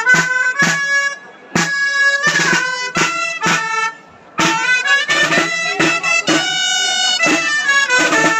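Traditional Valencian dance tune played on dolçaina (double-reed shawm), a loud nasal melody moving note by note, accompanied by tabal drum, breaking off briefly twice between phrases.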